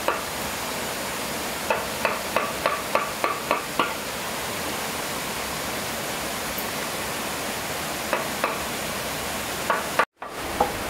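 Light, sharp knocks of a tool striking wood: a quick run of about eight taps, roughly four a second, a couple of seconds in, then a few scattered taps near the end, over a steady rushing noise. The sound cuts out for a moment near the end.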